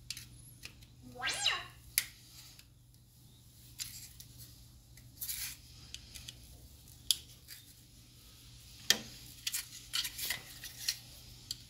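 Scattered plastic clicks and snaps as the plastic case of a Ram active grille shutter motor is prised apart and handled, its clips releasing, with light taps and rubbing between.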